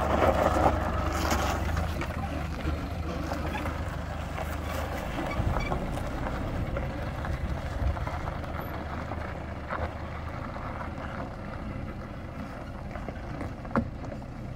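Toyota Hilux camper truck's engine running as it pulls away over a dirt track, its low hum fading as it drives off. A few sharp clicks near the end.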